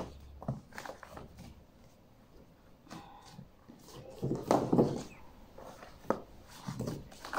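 Picture books being handled and set onto a wooden bookstand: scattered light knocks and paper rustling, with a louder, longer rustle about four and a half seconds in.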